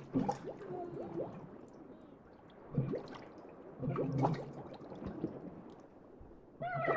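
Drowning sound effect: a person struggling in water, with irregular splashing and gurgling bursts and brief choked vocal sounds. A strained voiced cry starts near the end.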